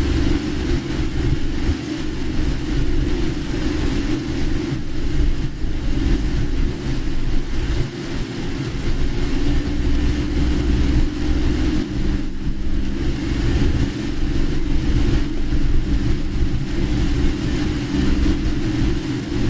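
Steady low road and engine rumble of a car being driven, heard from inside the cabin, with an even hiss of heavy rain and wet road over it.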